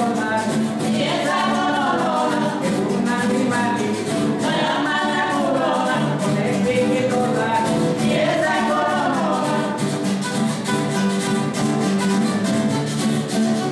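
Carranga band playing live: acoustic guitars strumming and picking, with a charrasca scraped in a steady rhythm and a voice singing the melody.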